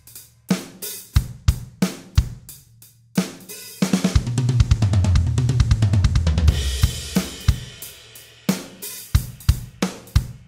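Roland electronic drum kit heard through its sound module: a sparse groove of kick, snare and hi-hat, then, about four seconds in, a fast linear triplet fill of rapid strokes shared between the toms and bass drum. The fill lasts about three seconds and rings out, and the groove picks up again near the end.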